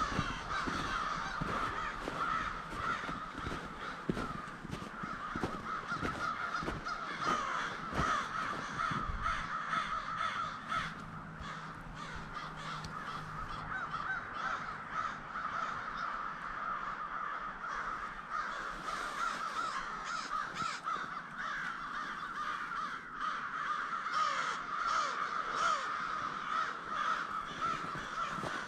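A large flock of American crows cawing continuously, many calls overlapping into a steady chorus.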